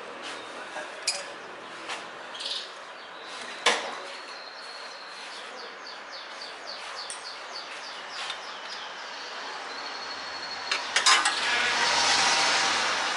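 Scattered sharp metallic clinks and one loud knock, then near the end a rushing noise with a low hum swells up and holds.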